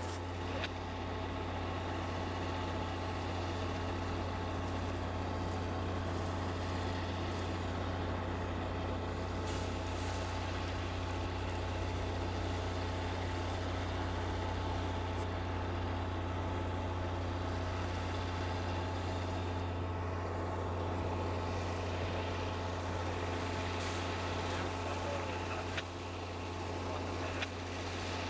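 Diesel locomotive engine running steadily in a rail yard: a constant low drone with steady tones above it. A few faint knocks come through at scattered moments.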